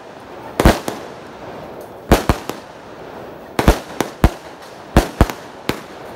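Aerial fireworks bursting overhead: about a dozen sharp bangs, many coming in quick pairs or threes about a second apart.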